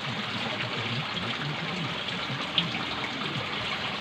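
Water of a small rocky stream running steadily, a continuous rushing trickle, with one short click about two and a half seconds in.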